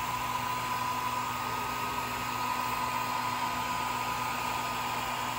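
Swiitol 18 W diode laser engraver at work: the steady airy whir of its air-assist pump and head fan, with a thin steady whine over it.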